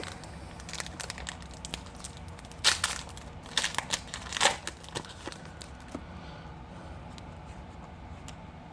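Crinkling and tearing of a trading card pack wrapper being handled and opened, in irregular crackly bursts, loudest near the middle, settling down after about five seconds.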